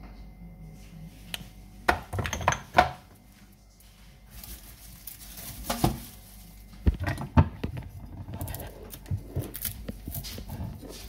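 Kitchen clatter: a seasoning shaker and other containers knocking against a stainless steel pot, a handful of sharp knocks spread through, then a run of lighter clicks and rattles near the end.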